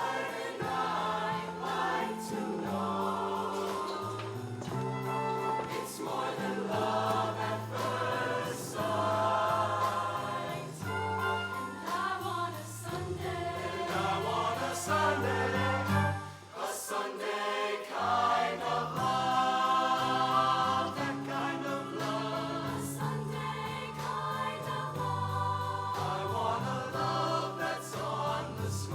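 Show choir singing with a live band: many voices in harmony over bass, keyboards and drums, the bass dropping out briefly about two-thirds of the way through.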